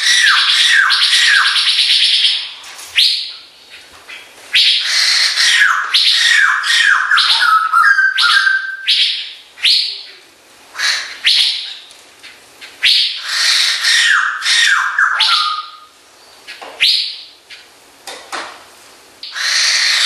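White-crested laughingthrush calling: loud bursts of harsh cackling chatter with quick runs of descending notes, starting and stopping every few seconds.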